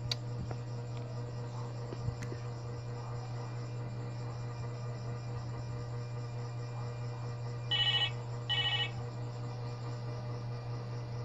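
Two short electronic ringing beeps from a baby's battery-powered plastic toy, about eight seconds in, over a steady low hum.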